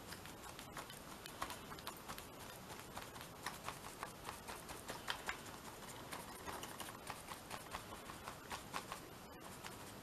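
Faint, irregular soft taps and brushing of a flat paintbrush dabbing runny matte medium onto a paper napkin on a journal page.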